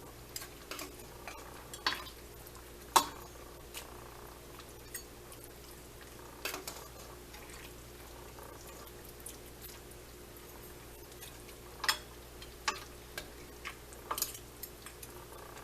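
A metal utensil clinking and scraping against a cooking pot as soup is scooped out and served, in scattered sharp clinks, the loudest about three seconds in and again about twelve seconds in.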